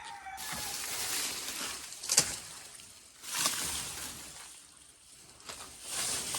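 Rustling and crunching of dry leaves and vegetation underfoot as someone walks through a banana patch, coming in three spells, with one sharp snap about two seconds in.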